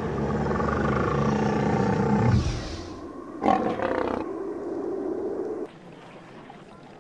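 Big-cat roar sound effect: one long roar of about two and a half seconds. About a second later comes a short, louder sound, then softer sounds that drop away.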